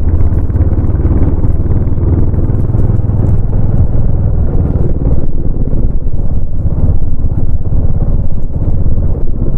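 Royal Enfield Bullet 350's single-cylinder four-stroke engine running under way, its exhaust giving a steady, rapid beat of low pulses.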